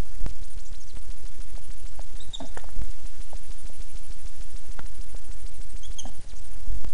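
A few short, high-pitched animal squeaks, about two and a half seconds in and again near six seconds, over a steady low rumble.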